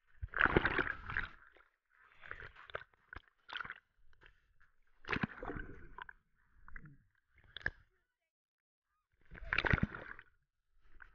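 Water splashing and sloshing right against the camera as it is held at and under the surface, heard as irregular muffled bursts with short gaps between them; the loudest burst comes at the start as the jumper surfaces in a splash, and another near the end.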